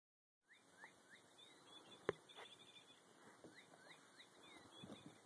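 Faint, high, bird-like chirps in quick runs, each one falling in pitch, with a single sharp click about two seconds in.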